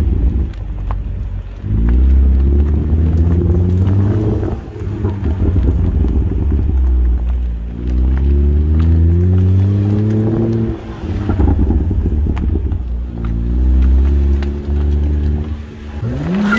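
BMW M2's turbocharged straight-six engine pulling hard three times, its note rising steadily over a few seconds on each pull and then dropping away, over a strong low rumble.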